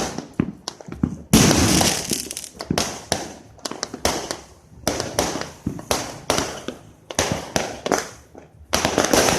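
Fireworks going off in a rapid, irregular string of bangs and crackles, with louder volleys about a second in, around four to five seconds, and near the end.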